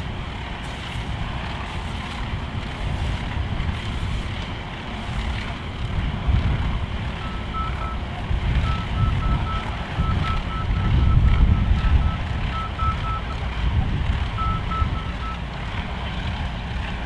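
Wind buffeting the microphone with a gusting low rumble, and a vehicle's backup alarm beeping repeatedly, starting about seven seconds in and stopping shortly before the end.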